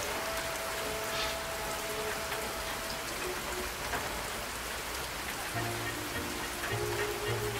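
A steady, even hiss like falling rain, with faint sustained musical tones over it. Lower held notes come in about five and a half seconds in.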